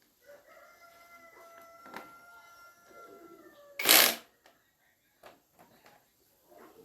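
A long, steady animal call lasting about three and a half seconds, then a loud sharp knock or clatter about four seconds in, followed by a few small clicks.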